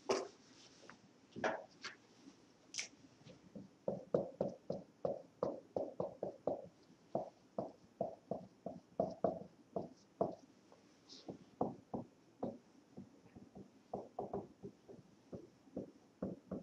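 Dry-erase marker writing on a whiteboard: a few scattered knocks and squeaks at first, then from about four seconds in a run of short irregular strokes, several a second, as letters are written.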